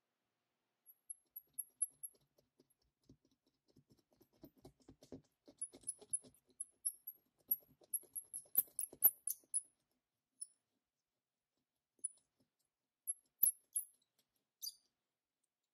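Razor blade scraping cured windshield-repair resin off glass in quick short strokes, each a faint high squeak with a dry scratch under it. The strokes come in bursts, busiest through the middle, with a few more near the end.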